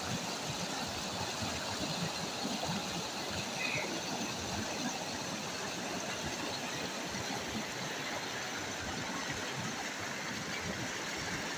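Steady rush of river water flowing over stones and gravel.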